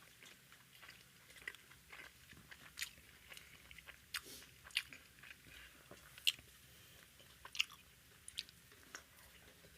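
Close-up sounds of a person chewing tandoori roti and naan with egg curry: irregular sharp mouth clicks and crunches, a few louder ones about a second apart.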